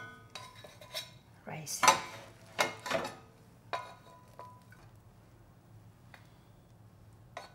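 Plastic rice paddle scraping and knocking against a stainless steel saucepan and a stainless thermos food jar as cooked rice is scooped in: a run of clinks and taps, some with a short metallic ring, stopping about four and a half seconds in.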